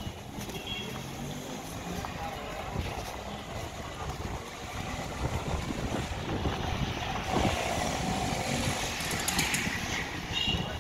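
Street traffic noise with a motorcycle coming along the street, its engine getting louder through the second half.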